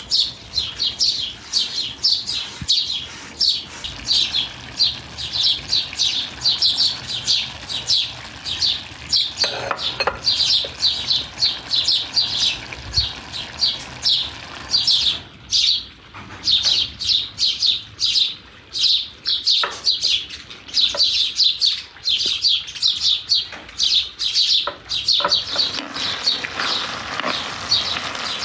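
Crickets chirping steadily in a high, even rhythm, about three chirps a second.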